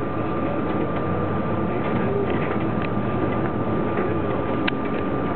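City bus heard from inside, driving slowly: steady engine and running noise with a constant high whine, and a few light clicks and rattles.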